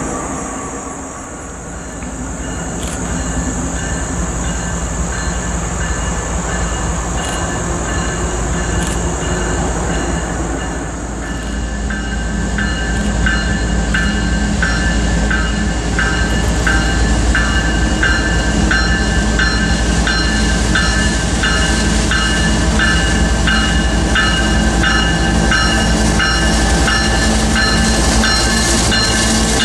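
CSX diesel locomotives leading an empty coal train in street running, their engines rumbling and growing louder as they draw near. From about twelve seconds in the locomotive bell rings steadily, a bit over one stroke a second.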